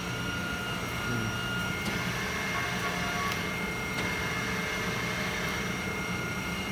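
Industrial plastics machinery running steadily, a hum under a high, even whine that steps up in pitch about two seconds in, with a few faint clicks.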